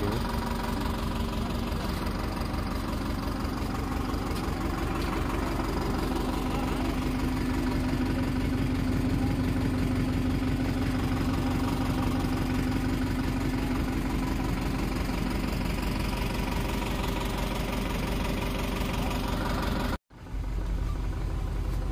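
Farm tractor's diesel engine running steadily while it pulls a potato planter through tilled soil. The sound cuts out for an instant near the end, then the engine hum resumes.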